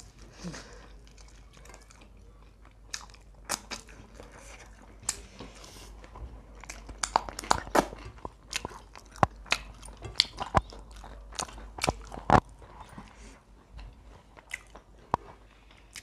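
Close chewing and biting of crisply fried chicken, with sharp crunches that come thick and fast in the middle and a single loudest crunch about three-quarters of the way through.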